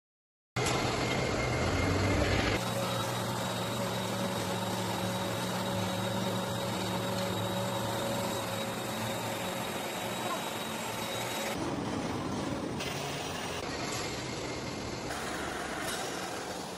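Steady hum and hiss of a hot-air EPE foam laminating machine running, with low steady tones under it. The sound changes abruptly several times.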